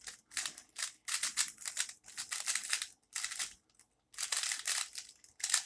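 Plastic Rubik's Speed cube, a non-magnetic speed cube, being turned rapidly by hand: runs of quick clicking, rattling turns, with a short pause about three and a half seconds in before the turning resumes.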